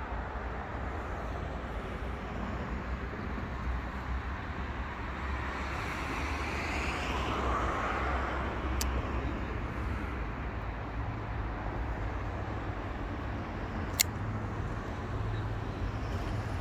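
Road traffic: a vehicle passes, swelling and fading through the middle, over a steady low rumble. Two sharp clicks follow, the second louder.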